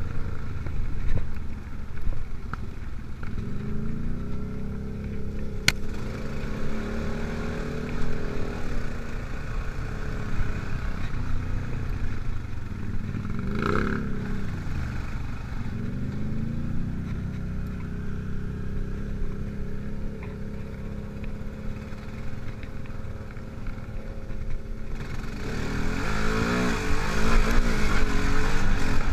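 ATV engine running as the quad rides along a dirt trail, its pitch rising and falling with the throttle. Near the end it speeds up and grows louder.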